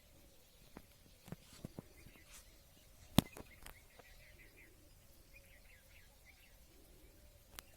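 Faint outdoor ambience with soft, repeated bird chirps, broken by several sharp clicks. The loudest click comes about three seconds in, and another comes near the end.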